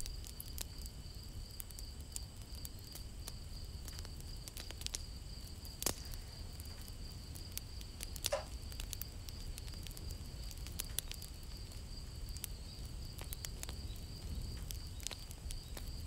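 Paintbrush dabbing paint onto paper: a few soft clicks and taps, the clearest about six seconds in, over a faint steady high-pitched whine and low hum.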